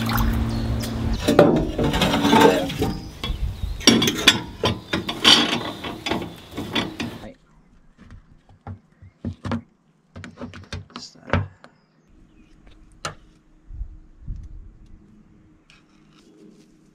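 A steady hum stops about a second in. Then comes several seconds of dense metallic clicking and clattering from tools at work in a narrowboat's engine bay. After a cut there are only scattered soft clicks and scrapes as a knife packs thick grease from a tin into a stern-gland greaser.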